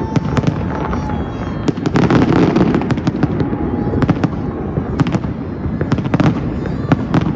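Aerial fireworks going off in rapid succession: many sharp bangs and crackles over a continuous low rumble, with a crowd's voices underneath.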